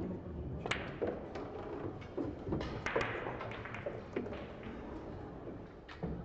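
Pool shot: the cue tip strikes the cue ball, and under a second later a sharp click of balls colliding, followed by several more clicks and knocks as the balls run on around the table.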